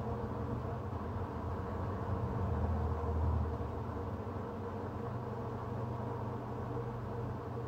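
Steady low mechanical hum over a soft hiss, with a deeper rumble swelling briefly about halfway through.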